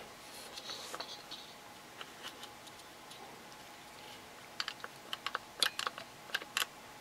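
DeWalt trigger bar clamp being tightened: faint handling rustle, then about ten sharp clicks over two seconds as the trigger handle is pumped, starting about four and a half seconds in.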